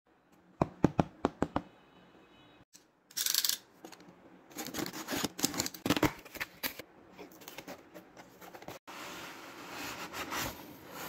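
Cardboard packaging being handled and opened by hand. About half a second in comes a quick run of sharp clicks, then a short scrape. Then comes a stretch of scuffing and rustling of cardboard, and near the end a steadier sliding rustle as the inner pulp tray and its papers come out.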